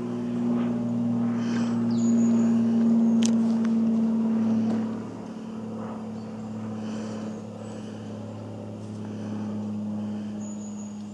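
An engine running steadily with an even hum, louder for the first five seconds, then a little lower in pitch and level.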